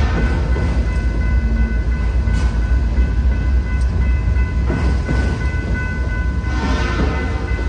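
BNSF autorack freight train rolling through the crossing: a deep, steady rumble with steady high ringing tones over it and a few clanks, at about five and seven seconds in.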